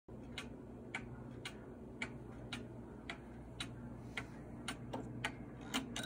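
Carved cuckoo-and-quail wall clock ticking steadily, about two ticks a second.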